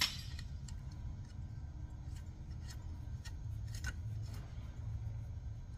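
Metal tools and parts being handled: a few scattered light clicks and rubs, the sharpest nearly four seconds in, over a low steady background rumble.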